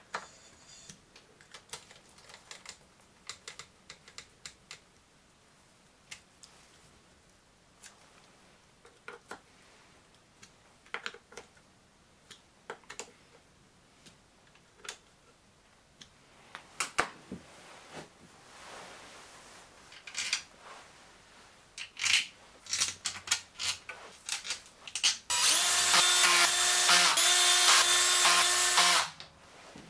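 Light metal clicks and clinks of hand tools and screws on an engine crankcase, then near the end a cordless drill/driver runs for about four seconds with a steady whir and stops suddenly. It is running in the crankcase-half screws with its slip clutch set to the lowest setting, only pre-tightening them.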